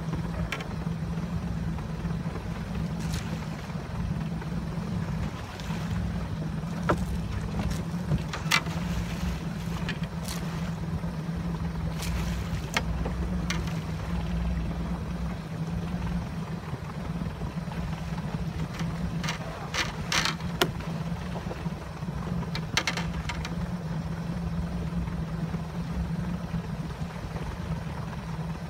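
Small boat's outboard motor running steadily at trolling speed, a constant low hum. Occasional sharp clicks and knocks sound over it, a little cluster of them about twenty seconds in.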